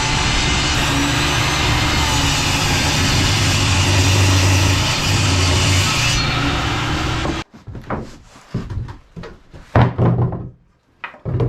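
Table saw ripping a 2x6 board lengthwise into strips, a loud steady run with a low hum that cuts off abruptly about seven seconds in. After that come a few sharp wooden knocks and clatters.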